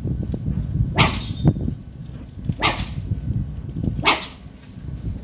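A long carbon pole rod swished hard through the air three times, about a second and a half apart, each a short whoosh.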